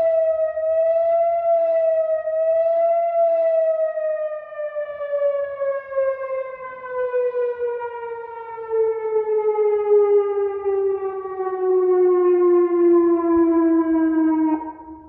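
Whelen WPS-2801 electronic outdoor warning siren sounding its Analog 864 fast-wail tone, with echoes. It rises and falls quickly, about once every second and a half, then winds down in one long falling glide and cuts off suddenly near the end.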